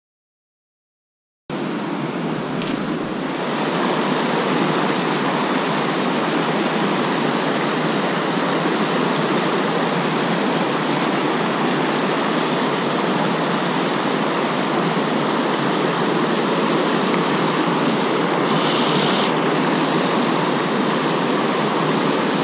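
Rushing whitewater of river rapids, a steady loud rush that starts after about a second and a half of silence.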